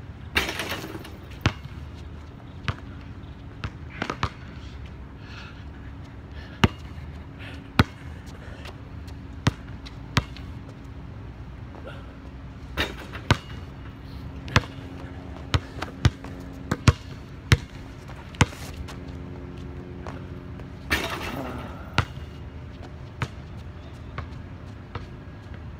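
Basketball thudding on the outdoor court and striking the backboard and rim as shots are thrown: a series of sharp single impacts at irregular intervals, with a longer ringing hit just after the start and again about 21 seconds in.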